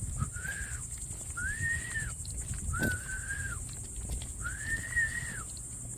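Four long whistled notes, each rising, holding and falling, over a steady high-pitched cricket chorus.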